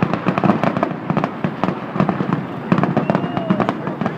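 Fireworks going off in a dense, rapid run of bangs and crackles.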